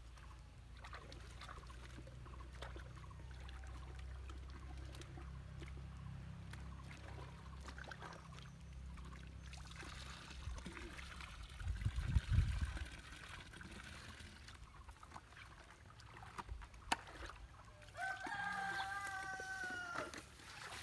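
A rooster crows once near the end, a single call of about two seconds. Before it there is a low rumble and, about twelve seconds in, a heavy low thump, the loudest sound.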